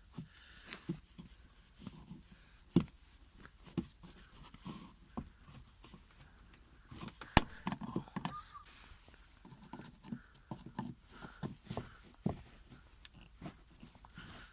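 Small clicks, scrapes and knocks of a pry tool working plastic push-clips out of the lower edge of a 2000 Honda Civic's rear bumper, with a sharp click about seven seconds in.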